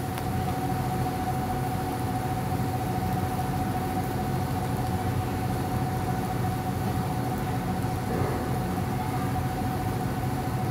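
Steady hum and hiss of an induction cooktop running under a skillet of frying chicken breasts, with a constant high whine.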